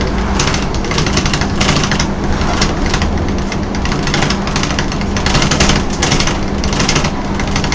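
Volvo B10M bus running, heard from inside: a steady drivetrain hum with a constant low tone, under a loud hissing rush that swells and fades irregularly.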